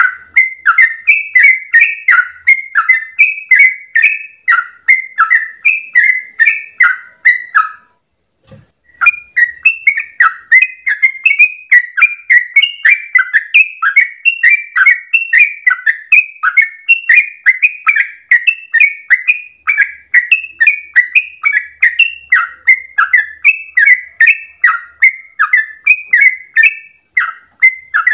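Yellow-vented bulbul (trucukan) singing its long, rapid 'ropel' song: a continuous run of short bubbling notes, about three a second. It breaks off for about a second roughly eight seconds in, then goes on.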